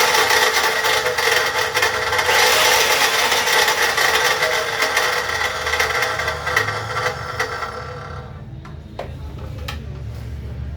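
INGCO COS35528 14-inch cut-off machine running with a loud, harsh grinding noise from its gearbox, which the owner suspects is a broken bearing. About six seconds in it is switched off and runs down, with a few knocks as it slows.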